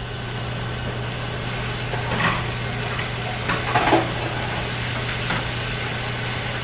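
Two beef steaks sizzling in hot butter in a cast-iron skillet: a steady frying hiss with a few louder pops and crackles, over a steady low hum.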